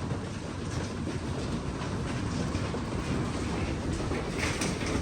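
Hailstorm: hailstones and heavy rain pelting down in a dense, steady clatter of countless small impacts.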